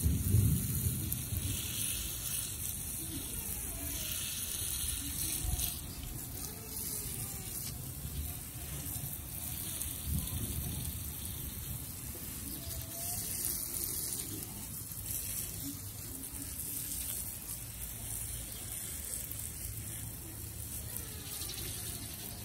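Water hissing steadily from the spray nozzle of a hose-end watering wand onto potted succulents in gravel-topped pots.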